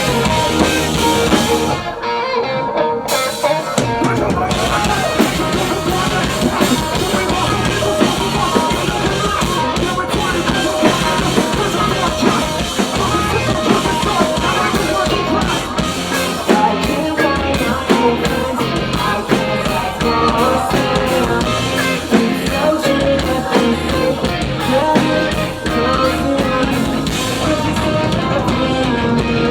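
A heavy rock band playing live: drum kit and guitars at full volume. The sound thins out briefly about two seconds in.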